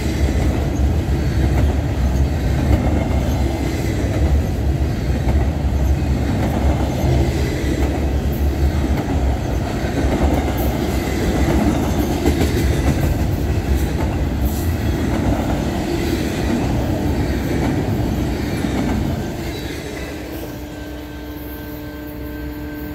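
Double-stack intermodal freight train's well cars rolling past at close range: a steady rumble of steel wheels on rail with occasional sharp clanks. It dies down about nineteen seconds in as the last car passes.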